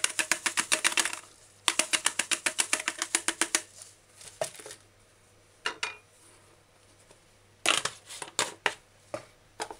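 Hand-twisted spice mill grinding dried parsley: a fast, even ratcheting click, about nine a second, in two runs with a short break about a second in. A few scattered clicks and taps follow near the end.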